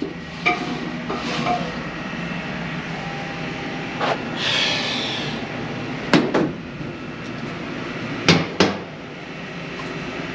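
PoolPak dehumidification unit's blower running on a failed bearing, a steady mechanical hum broken by a few irregular sharp knocks about four, six and eight seconds in, with a brief rushing noise near the middle.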